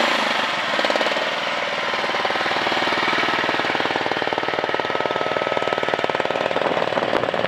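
Small engine of an AGT MX-MRW14 mini skid steer dropping from a higher speed to idle in the first second, then idling with a rapid, even pulsing.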